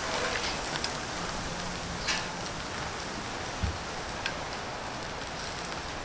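Steady hiss of light rain, with scattered sharp crackles from a charcoal grill of beef skewers and a single low knock about halfway through.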